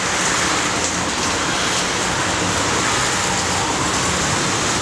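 Steady street noise, an even hiss with a faint low hum beneath it.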